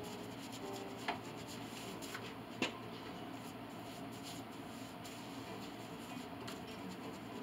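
Glue brush stroking and scrubbing over wood, a soft steady rubbing, with two sharp clicks about one and two and a half seconds in.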